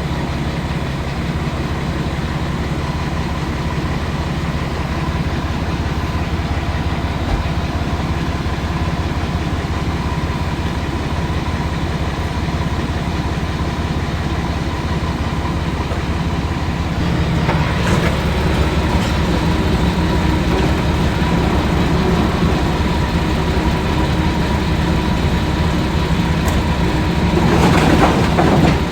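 Heavy earthmoving equipment's diesel engine running steadily. A louder rush of noise swells about 17 seconds in and again near the end.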